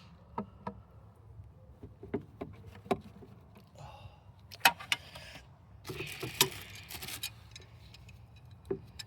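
Scattered clicks, taps and knocks of metal and plastic parts being handled while pipes and clamps are refitted in a car's engine bay, with a short scraping rustle about six seconds in.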